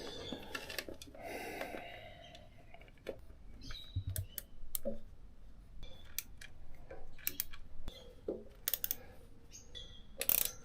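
Scattered light clicks and small metallic taps as the bolts of a motorcycle engine's front cover are handled and screwed in by hand.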